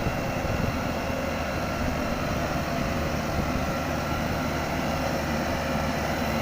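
Yanmar YH850 combine harvester's diesel engine running steadily at a constant pitch as the machine is eased down off a truck.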